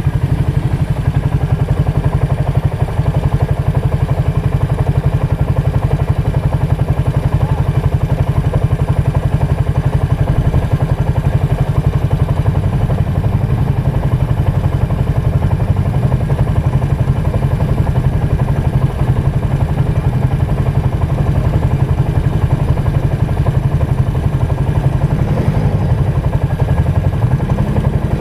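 ATV engine running steadily, its pitch rising near the end as it revs up.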